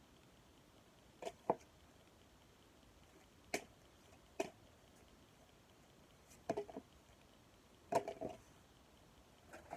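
Trading cards being flipped through and set down one by one: short, sharp card slaps and flicks every second or two, some in quick pairs.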